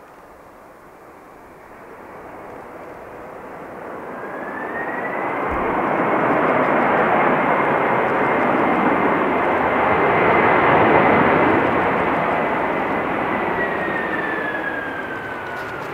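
Boeing 767-300 jetliner's engines as the aircraft rolls past. A broad jet rush swells over several seconds, and a high fan whine climbs to a steady pitch. Near the end the whine slides down in pitch as the aircraft moves away.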